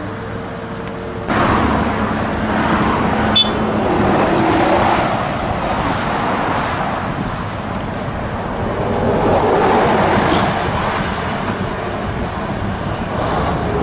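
Motorway traffic passing close by, mixed with a wheeled excavator working, in slow swells of noise. The noise jumps up suddenly about a second in, and there is a single sharp metallic click a few seconds in.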